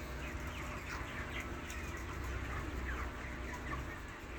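A flock of chickens calling continuously, with many short overlapping falling peeps and clucks, over a low steady hum.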